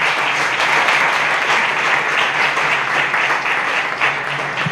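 Audience applauding at the end of a talk, a dense steady clapping that starts suddenly and begins to die down near the end.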